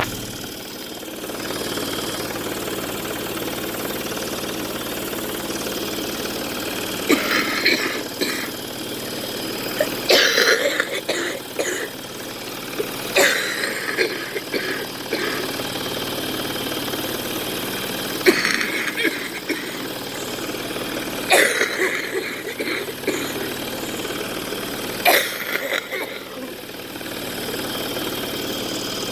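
A woman coughing in about six separate fits over a steady machine hum from her breathing-treatment equipment. The coughing is brought on by stepping up her treatments while she is sick.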